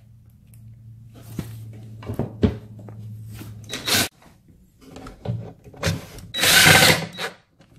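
RIDGID cordless impact driver driving screws through metal brackets into wooden braces, in short bursts with a few knocks between them; the loudest burst comes near the end.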